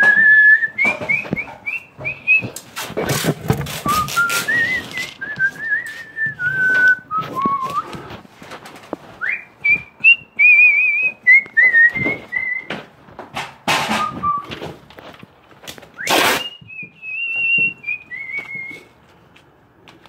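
A person whistling a wavering tune in short phrases, with pauses between phrases. Knocks and rustles of handling sound throughout, the loudest around 3 to 5 seconds in and again about 16 seconds in.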